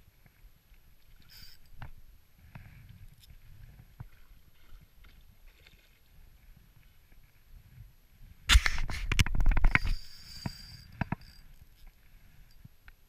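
Daiwa spinning reel being cranked to retrieve a lure, faint, with light scattered clicks. About eight and a half seconds in comes a loud burst of knocking and rushing noise lasting about a second and a half, then two sharp knocks about a second later.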